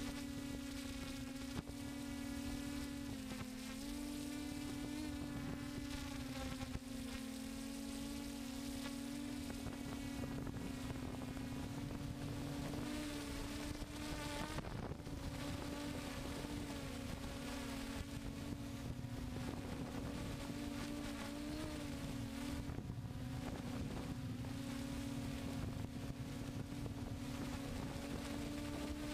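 A DJI F550 hexcopter's six electric motors and propellers buzzing steadily in flight, heard close up from the camera on board. The pitch wavers and dips slightly a few seconds in as the throttle changes. Wind noise runs underneath.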